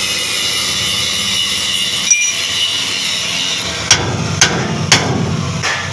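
Sharp metal knocks from work on a leaf-spring shackle and its bushing: one about two seconds in, then three about half a second apart near the end, over a steady mechanical hum and hiss.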